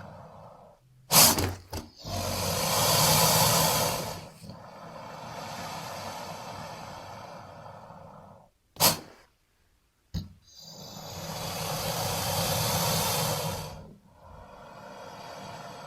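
An alligator or crocodile hissing in several long, breathy swells, broken by a few short, sharp sounds.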